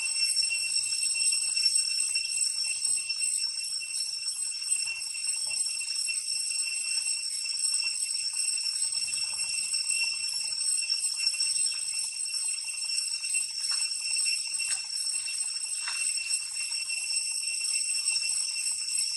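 Steady, high-pitched insect chorus, several shrill tones held without a break, with faint rustles now and then.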